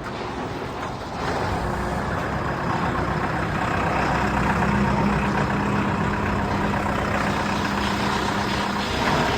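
Diesel engine of a JCB construction machine running steadily, growing louder about a second in, with a steady engine drone through the rest.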